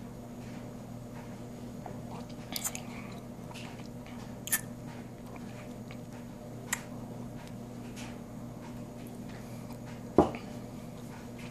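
A man tasting bourbon: a few short, sharp lip smacks and mouth clicks as he sips and savours it, over a steady low hum. There is a single louder thump about ten seconds in.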